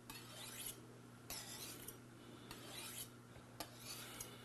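Kitchen knife blade drawn along a steel sharpening (honing) rod: four faint metal-on-metal strokes, a little over a second apart.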